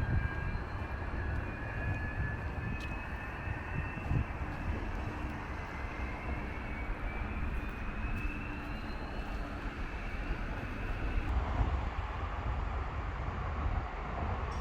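Jet airliner engines whining with a slowly rising pitch, over a heavy low rumble, likely with wind on the microphone. The whine stops abruptly about eleven seconds in, and the rumble carries on.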